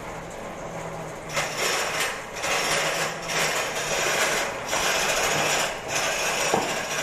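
A homemade three-in-one wood lathe running with a steady motor hum, joined from about a second in by a string of louder, rasping bursts that come and go every second or so.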